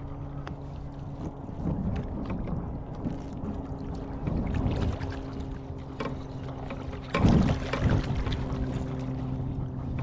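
Water splashing around a paddle board as a hooked bass is fought toward it, in uneven bursts with the loudest about seven seconds in, over a steady low hum.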